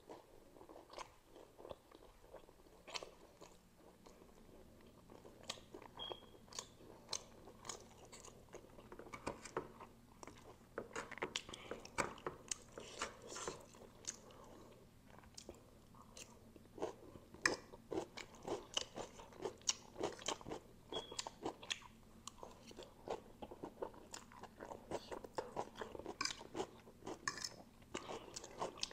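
Close-miked chewing of spicy instant noodles and momo chili: wet smacks and small crunches in irregular short bursts.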